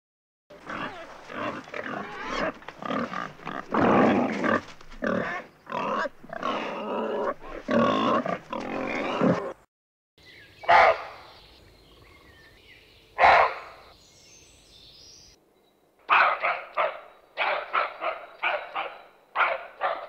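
Wild boar grunting and squealing in a dense, irregular stream for about nine seconds. Then come two single loud calls a couple of seconds apart, and near the end a run of short, sharp barks, the alarm bark of a roe deer.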